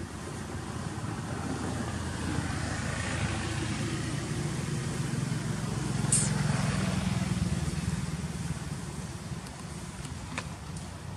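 A motor vehicle passing by. Its low engine hum swells, is loudest a little past halfway with a brief hiss, then fades away.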